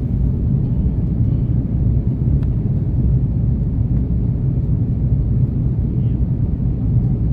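Steady low rumble inside the passenger cabin of an Airbus A330-300 in flight: engine and airflow noise.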